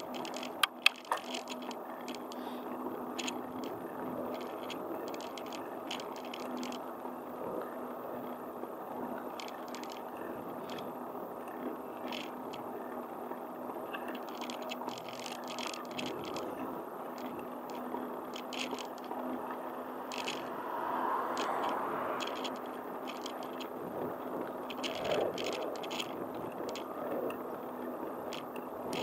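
Steady rolling noise of a ride on asphalt, wheels humming on the road with light rattles and scattered clicks from the frame. There are two sharp clicks about a second in.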